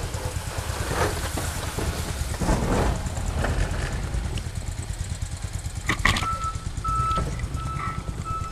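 Cub Cadet 149 garden tractor's single-cylinder Kohler engine running at idle with a steady low pulse. A few footsteps crunch through snow in the first four seconds, and from about six seconds in a short beep repeats roughly every 0.7 seconds.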